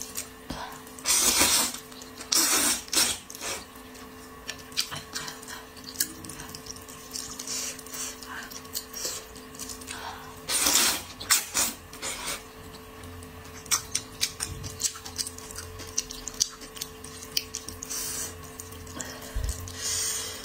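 A person slurping thick flat wheat noodles in a minced-meat chilli sauce: several slurps of about half a second to a second, with quieter chewing and mouth sounds in between. A faint steady hum runs underneath.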